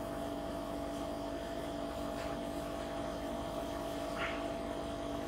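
Steady electrical hum in a small room, with two faint brief rubs of a whiteboard duster on the board, about two and four seconds in.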